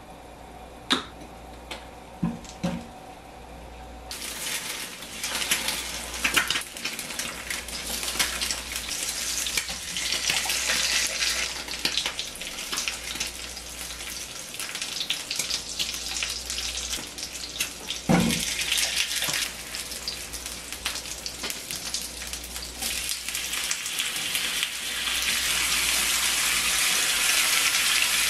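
Meat patties and eggs sizzling and crackling in an oiled non-stick frying pan. A few clicks sound in the first three seconds, then the sizzle starts about four seconds in. There is one sharp knock about halfway through, and the sizzle grows louder near the end.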